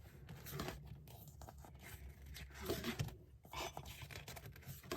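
Faint rustling and scraping of paper as a calendar's pages are handled, in a few short strokes.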